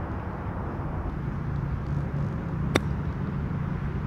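Steady low vehicle rumble with a faint hum, and a single sharp click about two and a half seconds in.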